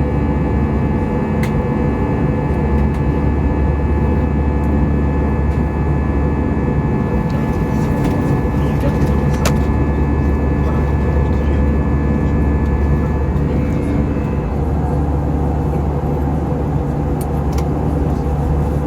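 Airbus A320 cabin noise in flight: a steady, loud drone of engines and airflow with a few steady tones on top, and a few faint clicks from the cabin.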